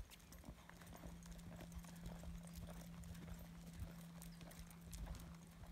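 Faint hoofbeats of a ranch horse moving over a soft dirt arena, a run of soft irregular thuds, over a steady low hum.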